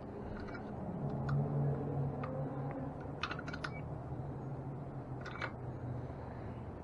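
Scattered light clicks and taps from hand work on the rear wheel's spokes, with small clusters of clicks about three and five seconds in, over a faint low hum.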